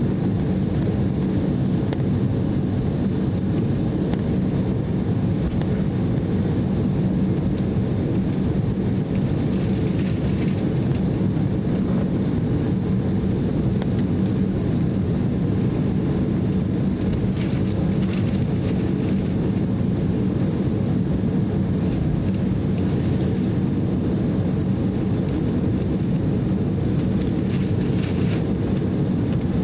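Cabin noise of an Embraer E190 airliner taxiing: its turbofan engines run at low taxi power in a steady low rumble with a constant hum, and a few faint clicks come through now and then.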